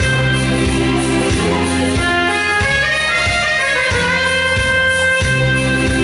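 Instrumental karaoke backing track playing through the hall's sound system: held melody notes over a bass line that moves at a steady beat, with no singing.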